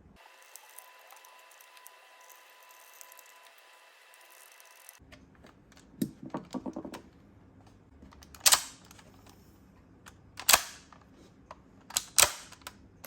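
Sharp plastic clicks and clacks from the repaired CSM Decadriver toy belt's buckle mechanism being worked by hand: first a quick rattle of small clicks, then three single loud clacks a couple of seconds apart, the last one doubled. Before the clicks there is only a faint steady hiss.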